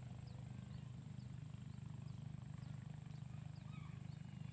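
Outdoor ambience: a steady low rumble, a constant high-pitched whine above it, and short high chirps scattered through.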